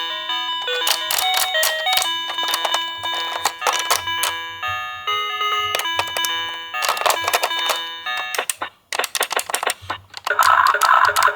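Electronic siren tones from several toy ambulances sounding at once, stepping between pitches like chimes, over many small clicks and clatters of the toy cars. The sound briefly cuts out near the three-quarter mark, then a louder, denser tone comes in.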